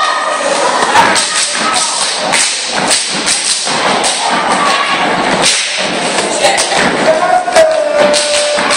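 Steppers stomping and clapping in a step routine: a run of sharp, repeated thuds and claps, with audience shouting and cheering over them.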